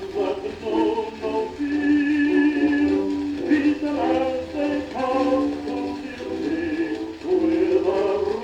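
Male tenor singing a song on an old 78 rpm gramophone record, with musical accompaniment. It has the narrow, thin sound of an early disc recording.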